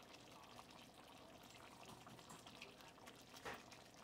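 Near silence: faint room tone with a few small clicks and one soft tap about three and a half seconds in.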